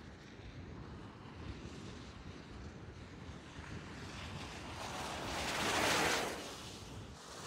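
Mercedes E 220d 4Matic driving past on a wet, slushy snow-covered road: a tyre hiss that swells as the car approaches, peaks as it passes about six seconds in, then fades. Before the pass there is a low wind rumble on the microphone.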